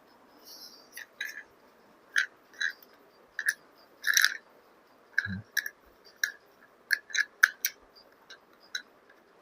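Irregular sharp clicks and crinkles of plastic being handled, the parts and packaging of a car phone holder being taken out and examined, with one soft low thud about halfway.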